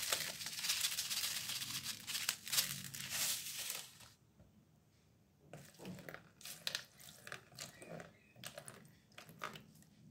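A plastic packet of mushroom stock powder crinkling as it is shaken over a metal bowl, stopping about four seconds in. After a short pause, a thin stream of water is poured into the bowl, with small irregular splashes.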